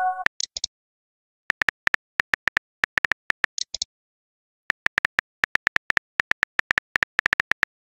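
Phone keyboard typing sound effect: quick, even key clicks, about five a second, in two runs with a pause of about a second between them. A short high blip sounds about halfway through, and the tail of a message chime rings at the very start.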